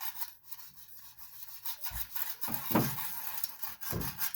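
A sandpaper-faced foam stick scrubbing rapidly back and forth over oiled aluminum foil: a scratchy rubbing, with a few heavier strokes that land with a dull thud. The abrading under oil breaks through the aluminum's oxide so that solder can wet the surface.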